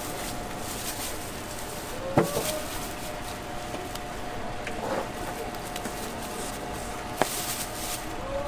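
A knife knocking sharply on a cutting board three times, a couple of seconds apart, while fruit is cut. The first knock, about two seconds in, is the loudest. A steady hum runs underneath.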